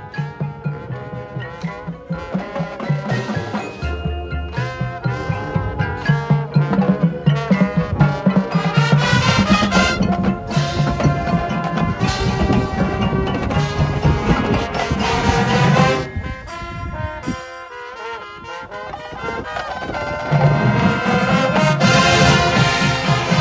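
Marching band playing its field show: massed brass over drums and percussion with a steady beat. The music drops to a quieter passage about sixteen seconds in and comes back loud about four seconds later.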